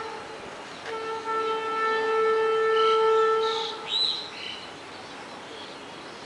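Horn of a WAG-9 electric locomotive blown in blasts: a steady single-pitch tone ends just after the start, sounds again about a second in and is held for nearly three seconds. A short high chirp follows just after the horn stops.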